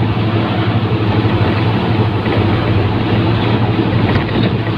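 Truck engine running at a steady pace while driving, heard from inside the cab as a low, even drone.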